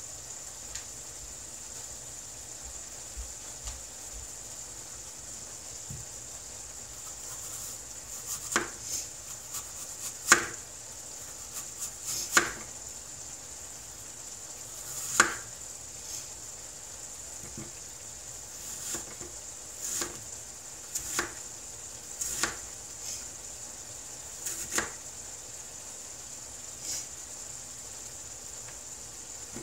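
Irregular knocks and clatter of kitchen prep work off to the side, a dozen or so sharp strikes scattered over the middle twenty seconds, the loudest about ten and fifteen seconds in, over a steady high hiss.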